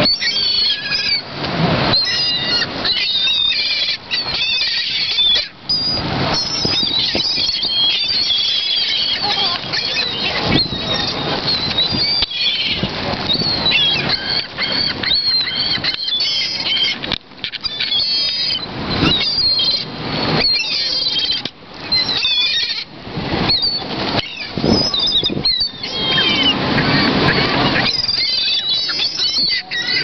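A flock of gulls calling constantly in short, wavering, high-pitched cries, with wings flapping close by as the birds hover at arm's length.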